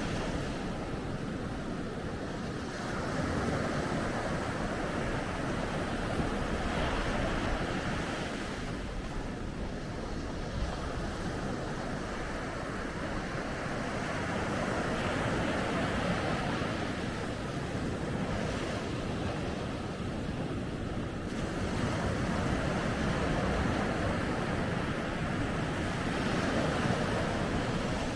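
Sea waves washing onto a beach, a continuous surf that swells and eases in slow surges every several seconds.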